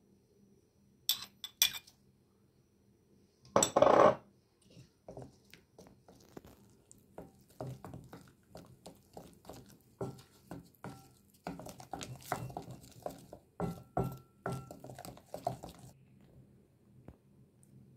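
Wooden spoon stirring a wet cookie-dough mixture in a bowl, clacking and scraping against the bowl in quick strokes from about five seconds in until it stops near the end. Before that come a few clinks and one louder, short clatter about four seconds in as powder is tipped in from a small glass bowl.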